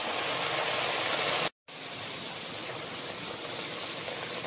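Rohu fish pieces simmering in mustard-paste gravy in a kadai: a steady sizzling hiss that drops out briefly about a second and a half in.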